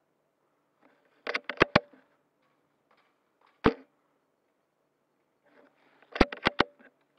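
Sharp close clacks from an airsoft bolt-action sniper rifle (SRS G-Spec custom): a quick run of four clicks about a second and a half in, a single snap about three and a half seconds in, and another run of four clicks near the end.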